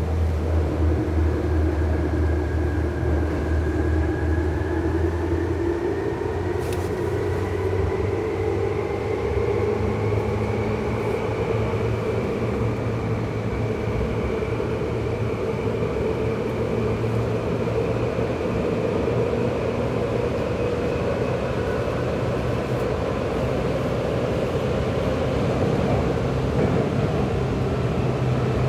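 Tokyu 8500 series electric train heard from inside the car while running: a steady rumble of wheels on rail under a traction-motor whine. The whine rises slowly in pitch over the first dozen seconds as the train gathers speed, then holds steady.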